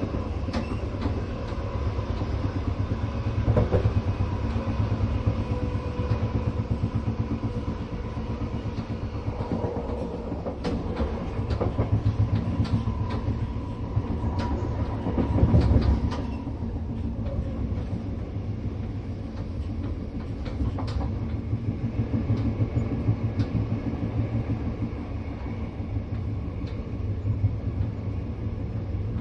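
Interior of a moving train carriage: a steady low rumble of the wheels on the track with rattles and sharp clicks from the car, and one louder surge of rumble about halfway through.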